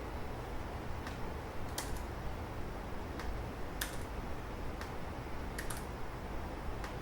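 Sparse clicks of computer keyboard keys, about eight spread unevenly over the seconds, over a steady low hum.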